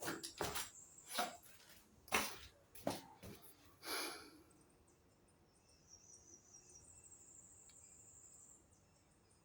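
A handful of sharp knocks and clicks over the first four seconds, as of tools or pipe fittings being handled, then a faint high warbling chirp for a couple of seconds.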